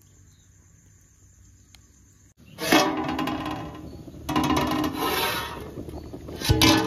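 Background music: three loud strummed chords, the first about two and a half seconds in, each ringing and fading. Before them, only a faint steady high whine.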